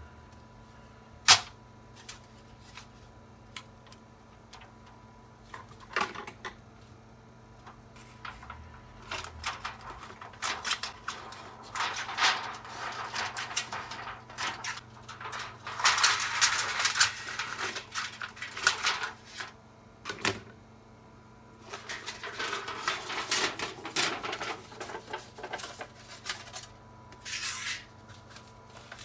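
Aluminum foil being handled and worked, with long stretches of dense crackling and crinkling and a few sharp clicks and taps, the loudest a single click about a second in.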